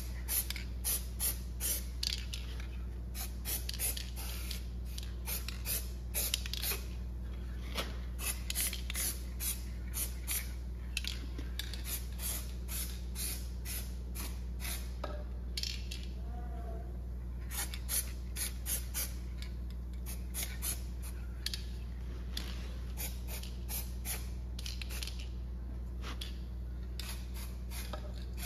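Aerosol can of crack-detector developer sprayed onto welds in many short bursts, in clusters with a pause about halfway through, over a steady low hum.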